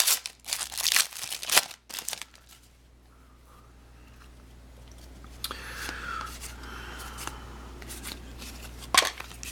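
Trading card pack wrapper crinkling and tearing, with cards rustled and handled: a dense run of sharp crackles over the first two seconds, then quieter, scattered handling sounds and a few clicks near the end.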